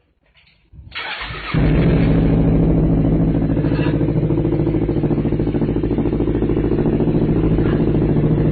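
An engine starts about a second and a half in and keeps running steadily, like a motorcycle or other small engine idling.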